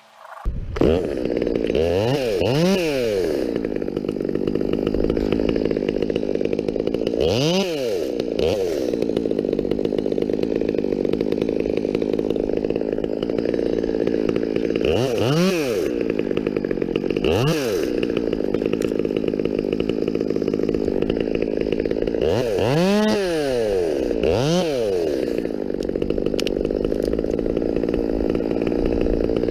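Two-stroke chainsaw starting loud about half a second in and then running steadily at high revs.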